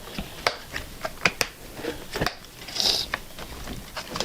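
Hard plastic clicks and taps as the replacement switch and housing parts of a Numatic Henry vacuum cleaner are handled and pressed into place, irregular and a few a second, with a short rustle about three seconds in.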